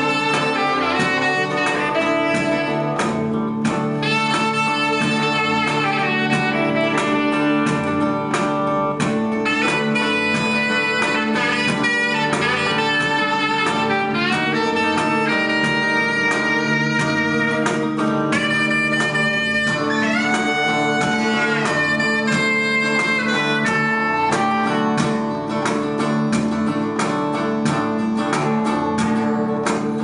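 Live band playing: a hollow-body electric guitar and a second guitar keep up a steady accompaniment while a saxophone plays melodic lines over it, with some bends and vibrato in the melody.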